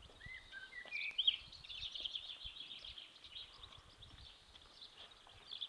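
Small birds chirping and twittering, with one clear whistled call that rises and falls about a second in. Underneath are faint, irregular low knocks and rattles from a wheelbarrow loaded with kettlebells and weights rolling over block paving.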